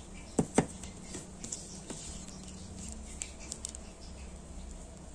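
Small plastic fan parts being handled on a table: an impeller and fan frame knock sharply twice about half a second in, followed by a few light clicks and taps.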